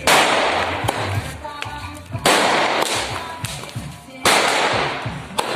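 Three firecracker blasts about two seconds apart, each a sudden bang that trails off in a hiss over a second or two.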